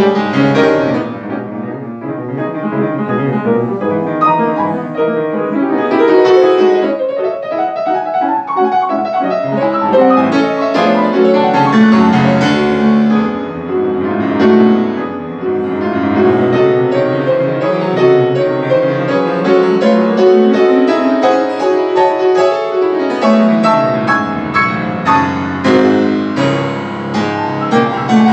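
Solo grand piano playing fast, virtuosic classical passagework: dense rapid runs sweeping up and down the keyboard over bass notes, with one long run falling into the bass near the end.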